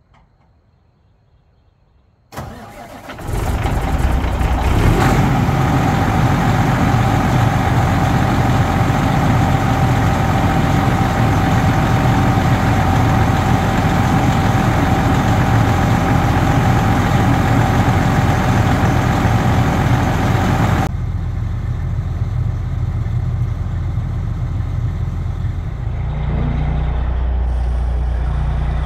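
Peterbilt 389 semi truck's diesel engine cranked and started about two seconds in, then idling. A steady high tone sounds over the engine and cuts off about three-quarters of the way through.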